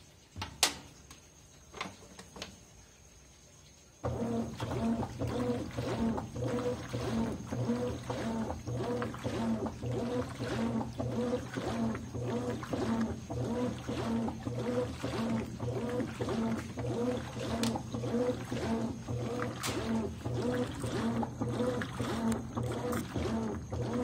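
A few faint clicks, then about four seconds in a Consul 13 kg top-load washing machine starts agitating a load of bath towels. Its motor hum comes with a regular rhythmic pulse of churning water as the wash action swings back and forth.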